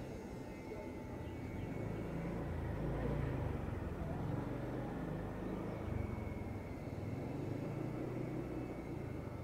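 Low, uneven rumble of distant vehicles, with no train passing close by.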